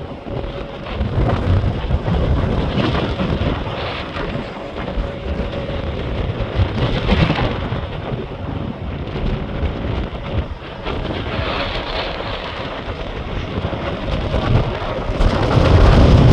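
Severe-storm wind and rain, gusting in waves with a heavy low rumble and getting louder near the end.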